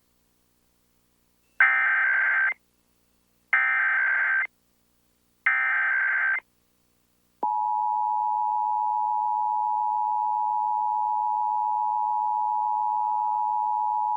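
Emergency Alert System tones of a national test: three bursts of digital SAME header data, each about a second long and a second apart, then, from about halfway in, the steady two-tone attention signal of 853 and 960 Hz.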